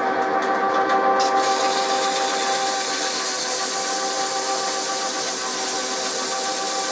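Metal lathe running with a steady whine of several tones as a stepped cone pulley spins in its chuck. About a second in, a loud, even rubbing hiss starts as rust is rubbed off the spinning pulley by hand.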